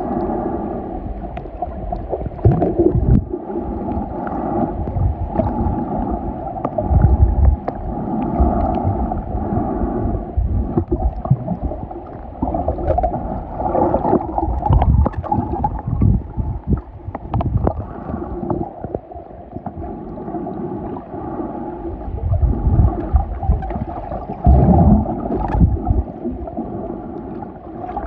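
Muffled underwater sound picked up by a submerged camera: gurgling and sloshing water with low thumping swells and scattered small clicks.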